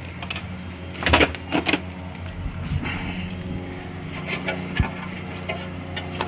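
Handling noises: a few sharp clicks and scrapes, the loudest about a second in, as a radiator bracket is held and shifted against the car's sheet-metal radiator support, over a steady low hum.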